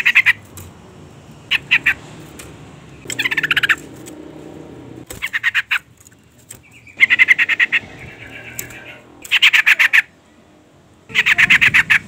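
Sooty-headed bulbul (trucukan) calling in repeated bursts of fast chattering notes, several bursts of half a second to a second and a half each: the excited call of a female calling to a male.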